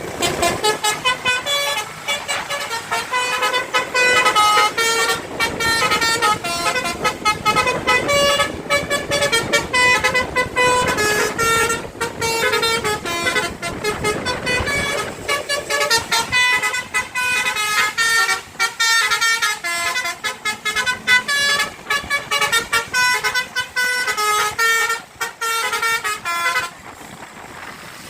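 Telolet basuri bus horn, a multi-trumpet musical air horn, playing a long tune of quickly changing notes, then stopping shortly before the end.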